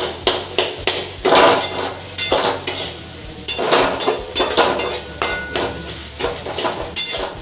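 Metal spatula scraping and clanking against the sides of a metal cooking pot while stirring chopped tomatoes and onions, about three quick strokes a second.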